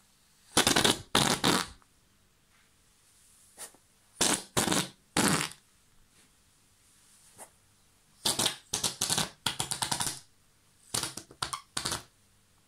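Rubber whoopee cushion squashed flat under a sitting person, letting out loud fart noises in short groups: two blasts about half a second in, three more around four to five seconds, a long sputtering run of rapid flaps around eight to ten seconds, and a few more near the end.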